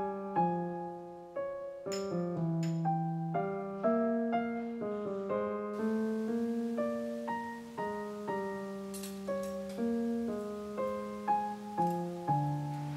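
Background music: solo piano playing a gentle melody over chords. A light clink sounds about two seconds in.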